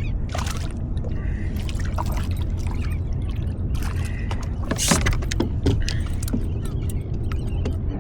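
Water splashing and sloshing in short irregular bursts, the loudest about five seconds in, over a steady low rumble.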